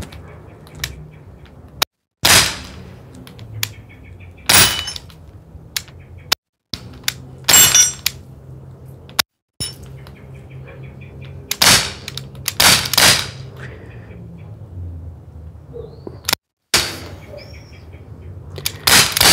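Umarex Glock 19 CO2 BB pistol (4.5 mm) firing single shots: about seven sharp cracks at irregular intervals, the last two close together near the end.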